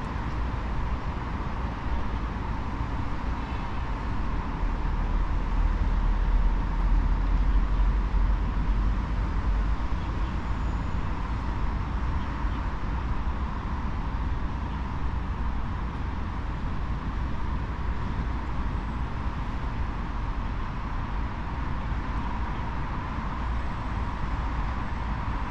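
Steady outdoor city ambience of distant road traffic: a continuous low rumble and hum that swells for a few seconds about five seconds in.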